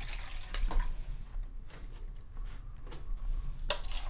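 Water poured from a plastic bottle into a paper cup, with a sharp knock near the end.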